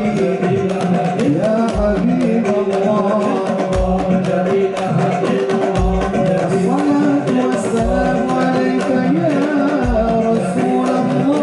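Sholawat devotional singing with percussion: a melodic vocal line over quick hand-drum strikes, and a deep drum beat about every two seconds.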